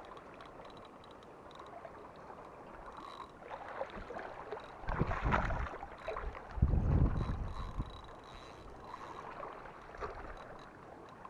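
Spinning reel being cranked to wind in a hooked carp, with a faint steady wash of water around a wading angler. Two loud, low, dull rumbles come about five and seven seconds in.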